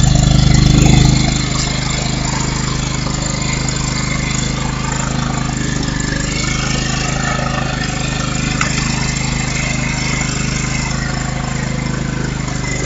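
Craftsman lawn tractor engine running steadily after a jump-start, a little louder for the first second before settling to an even idle.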